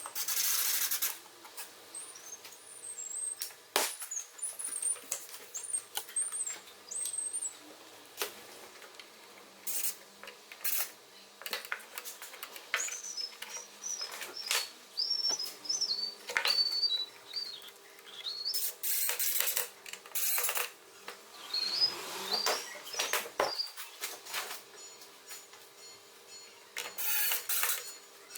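Scattered clicks, knocks and short hissing noises from hand work, with a small bird chirping in quick wavering high notes at several points.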